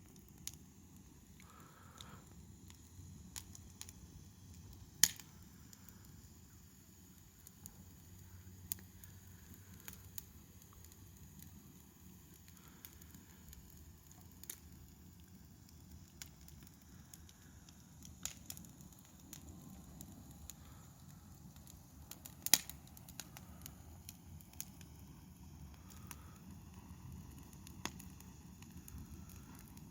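Wood fire burning with a steady low rush and scattered crackles. Two sharp, loud pops come about five seconds in and again about twenty-two seconds in.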